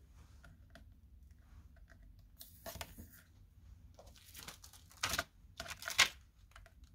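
Hands handling small plastic and paper craft supplies on a desk: light clicks, taps and rustling, with two sharper knocks about five and six seconds in.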